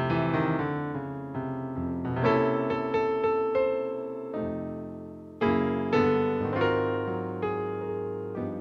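Background piano music: chords and melody notes struck and left to ring; one phrase fades out and a new one begins with a struck chord about five and a half seconds in.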